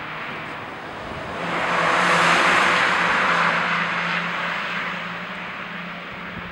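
A car passing by, the rush of its tyres and engine swelling about a second and a half in, peaking, then fading away over the next few seconds, over a low steady hum.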